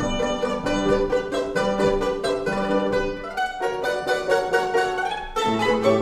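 Two violins with piano accompaniment playing a lively rondo in quick, short notes.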